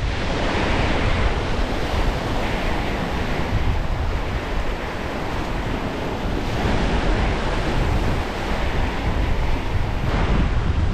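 Strong wind buffeting the microphone, with waves washing in and out as swells of noise that rise and fall every few seconds.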